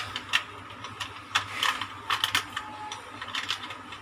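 Irregular sharp plastic clicks and light knocks from handling a small toy RC remote control: AA batteries being settled in its battery compartment and the plastic battery cover fitted back on.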